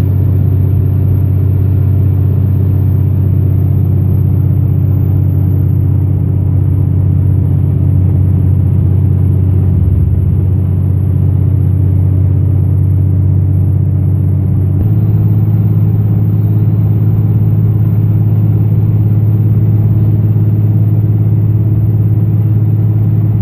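Dodge Ram's 5.9 L Cummins turbo-diesel heard from inside the cab while cruising on the highway: a loud, steady low drone. The drone steps slightly higher about fifteen seconds in.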